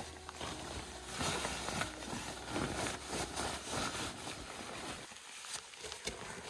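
Fabric rustling and swishing as a pair of camouflage pants is stepped into and pulled up, dying down about five seconds in.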